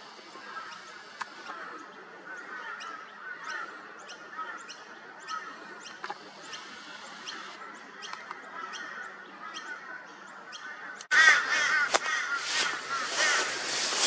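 Background of birds chirping and chattering, with faint high ticks about twice a second. Near the end the sound cuts abruptly to a louder, busier chorus of bird calls with rustling noise.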